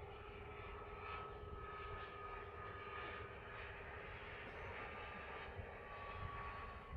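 Cessna 510 Citation Mustang's twin Pratt & Whitney Canada PW615F turbofans at low power as the jet touches down and rolls out. They are heard as a faint whine that slowly falls in pitch, over a steady lower hum and a low rumble.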